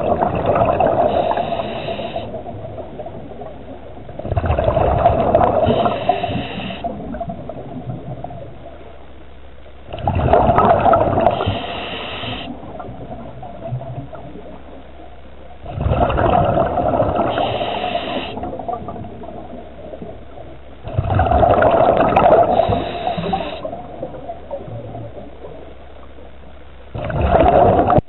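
Scuba diver breathing through a regulator underwater: each exhale sends out a gurgling rush of bubbles that rises sharply and fades over a couple of seconds, coming about every five and a half seconds.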